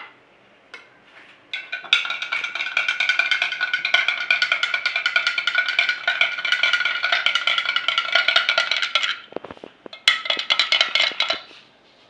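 Metal spoon stirring detergent solution in a drinking glass, rapid clinks against the glass that set it ringing. Two spells of stirring: a long one, then a short one after a brief pause.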